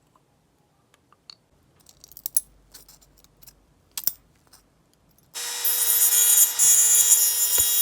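A scattering of light, sharp clicks and taps, like small metal parts being handled, then about five seconds in loud music with steady held notes starts abruptly.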